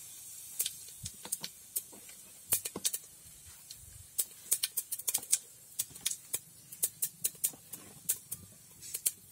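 Cumin seeds crackling in hot coconut oil in a pot: irregular sharp pops, several a second, over a faint hiss.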